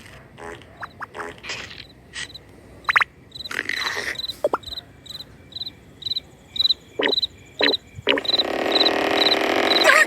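Crickets chirping, a short high chirp repeating evenly about two to three times a second and faster near the end. Several short, sharp sounds come in over it, and about eight seconds in a loud rushing noise takes over.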